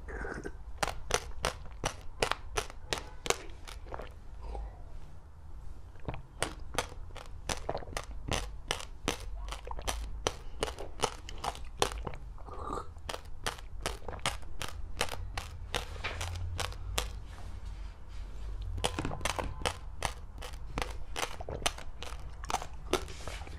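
Close-miked chewing with sharp, rapid crunches, about two to three a second, broken by short pauses, as seed-studded passion-fruit jelly is eaten.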